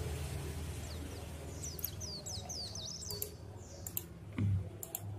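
A computer mouse clicking a few times in the second half. Small birds in the background chirp repeatedly in quick, high, falling notes, over a steady low hum.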